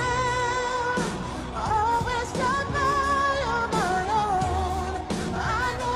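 Pop song performed on stage by a costumed singer and a live band: a lead vocal with wavering vibrato over a steady drum beat.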